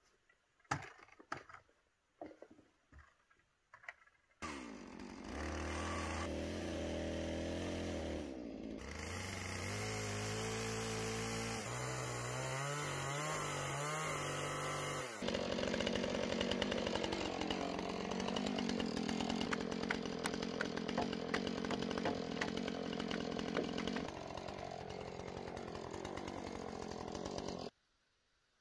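A few sharp knocks, then a two-stroke chainsaw running from about four seconds in, its engine pitch jumping abruptly between idle and higher revs in spliced stretches, until it cuts off suddenly near the end.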